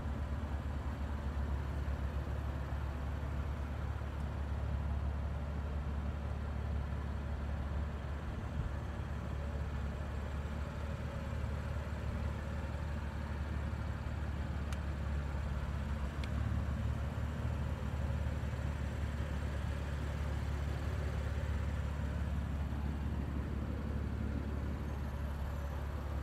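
The BMW M3's 3.0-litre twin-turbocharged inline-six idling steadily, a low, even drone.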